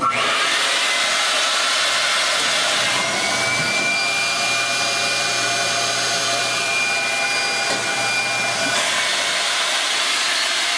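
Vacuum-table blower of a Brown Manufacturing Falcon flatbed screen printer switching on and running with a steady rushing whine, pulling the sheet of paper flat on the print bed. About three seconds in, a second, higher steady whine with a low hum joins it and stops near nine seconds.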